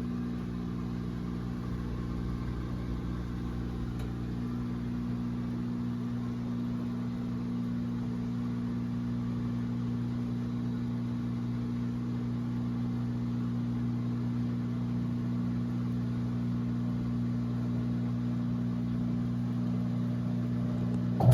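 Electrolux LE06DBD top-load washing machine running with a steady electric motor hum.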